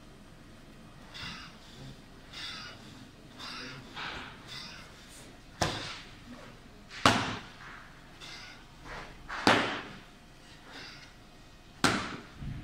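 A martial artist performing a solo tai chi form on a hard floor, with four sharp impacts from his explosive moves, the first about five and a half seconds in and then roughly every two seconds. Shorter, softer sounds of movement come in between.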